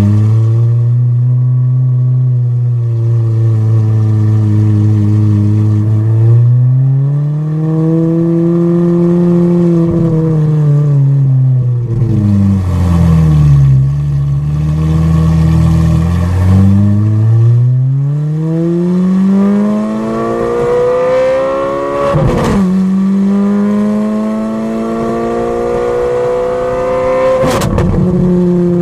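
Ferrari 430 Scuderia's 4.3-litre V8 through a straight-pipe exhaust, driven hard: the revs rise and fall, then climb steeply twice, each climb cut by a quick upshift with a sharp crack.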